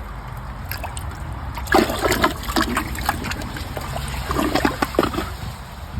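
Water trickling and splashing in a toilet bowl after a flush that failed to clear a thick glove. There are two short spells of splashing, about two seconds in and again near five seconds.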